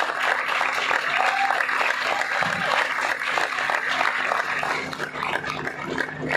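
Audience applauding, with many hands clapping, thinning slightly near the end.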